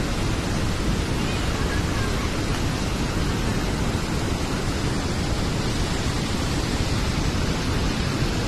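Steady rushing noise of Athirappilly Falls, a large waterfall, heard from the viewpoint above it.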